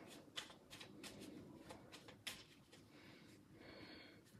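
A few soft, scattered clicks of a tarot deck being handled in the hands, over near silence.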